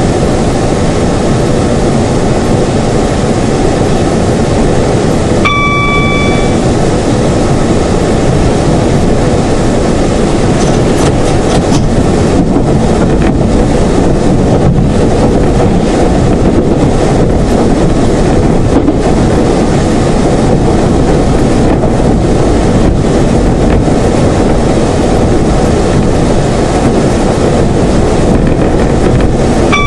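Class 171 Turbostar diesel multiple unit running along the line, heard from the cab: a steady, loud rumble of underfloor diesel engine and running gear. A brief high pitched tone sounds for about a second, some six seconds in, and again right at the end.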